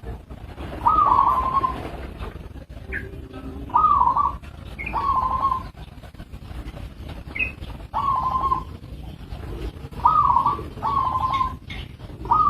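Zebra dove (perkutut) cooing: about six short rolling coos, several in pairs a second apart, repeated every few seconds over a low background rumble.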